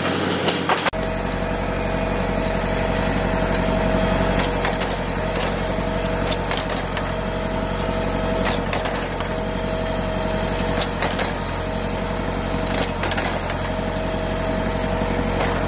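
Ferguson tractor engine running steadily while it drives the green vine-tying machine, starting about a second in, with a steady whine over it and sharp clicks every second or two from the machine at work.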